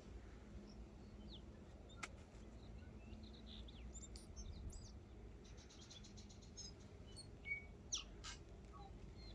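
Faint birdsong: small birds chirping and calling, with a quick trill about halfway through and a couple of sharp chirps near the end.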